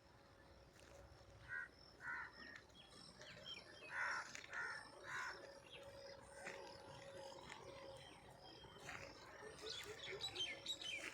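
Outdoor birdsong: crows cawing about five times in the first half, over a steady background of small birds chirping that grows busier near the end.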